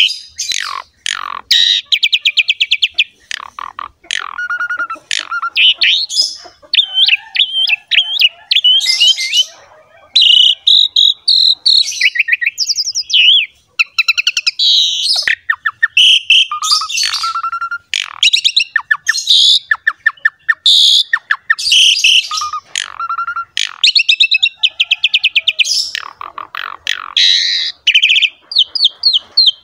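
Asian pied starling (jalak suren) singing a loud, varied song in full voice: quick phrases of rapid chattering trills, whistles and harsher notes with brief gaps between them.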